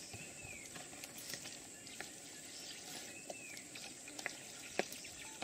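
Faint outdoor background hiss with scattered small clicks and a short high falling chirp that repeats about every three seconds.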